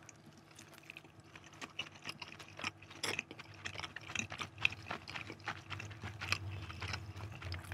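A person chewing a bite of chicken momo: faint, irregular wet mouth clicks and smacks, with a steady low hum underneath.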